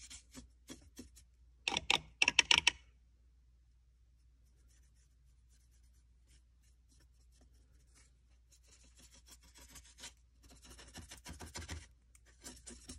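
A few short puffs of breath blowing loose chalk dust off a plaster model road, then from about eight seconds in a paintbrush scrubbing chalk onto the hard hydrocal surface in quick scratchy strokes.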